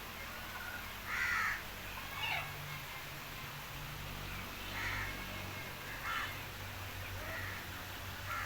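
Bird calls: about six short calls spaced a second or more apart, the first the loudest, over a steady low hum.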